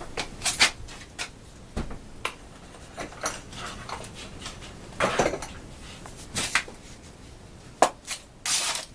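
Irregular knocks, clatters and short scraping sounds as objects are handled and shifted about.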